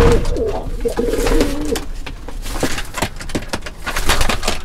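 Domestic pigeons cooing, a wavering low call that carries on through the first couple of seconds, with short sharp clicks and knocks scattered throughout.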